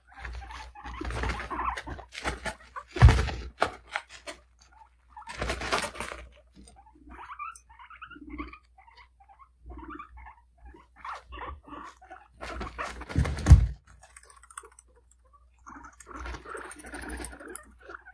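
Guinea pigs purring in clusters of short, rough, rapidly pulsing notes, some drawn out over a second or two and others broken into separate little grunts. Two loud thumps, about three and thirteen seconds in, are the loudest sounds.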